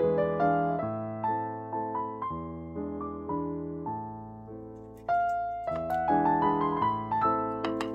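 Background piano music: a gentle melody of struck notes fading after each strike, growing louder about five seconds in.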